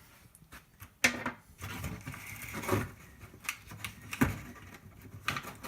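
Hands handling a car's plastic headlight bulb and holder: scattered sharp clicks, with rustling between them.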